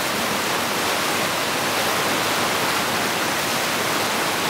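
Whitewater rapid rushing steadily over boulders.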